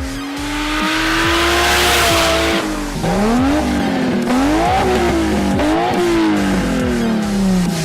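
Car engine revving, its pitch climbing slowly at first, then rising and dropping several times in quick succession, and falling away near the end. A loud hiss runs over the first couple of seconds.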